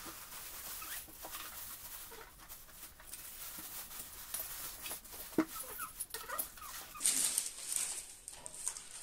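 Plastic wrapping crinkling and rustling, with cardboard scraping, as a benchtop jointer-planer is unpacked. A few short squeaks come about midway, and the rustling is loudest about seven seconds in as the wrapping is pulled off.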